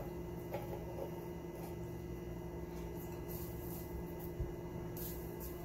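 Steady room hum with a few faint rustles and light clicks of hands moving about a tabletop, and one soft knock about four and a half seconds in.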